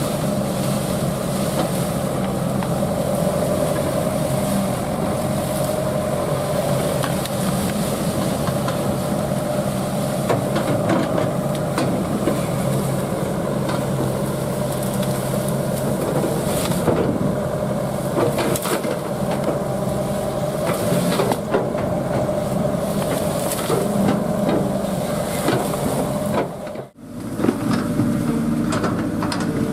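Excavator's diesel engine running steadily under load, with scattered cracks and snaps of breaking wood and brush. Near the end the sound cuts out for an instant and returns with a different, lower engine note.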